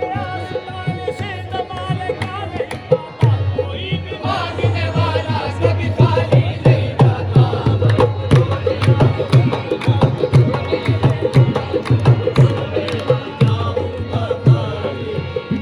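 Qawwali music: hand drums keep a quick, steady beat under a sung melody, with the drumming growing fuller about three seconds in.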